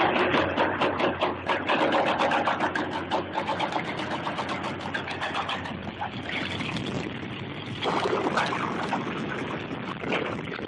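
Excavator diesel engine running hard with rapid clattering knocks, and a louder rush of noise about eight seconds in.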